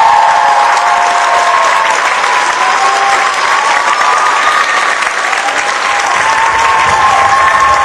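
Audience applauding: dense, continuous clapping from a large crowd that keeps going without a break.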